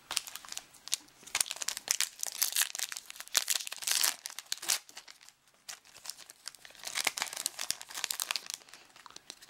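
Foil wrapper of a baseball card pack crinkling as it is torn open and handled, in two spells of dense crackling with a short pause in between.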